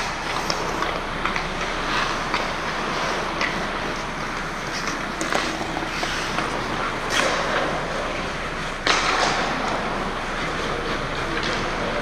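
Ice hockey being played close to the goal: skate blades scraping and carving the ice, with clacks of sticks and puck and a few sharp knocks, the loudest about seven and nine seconds in.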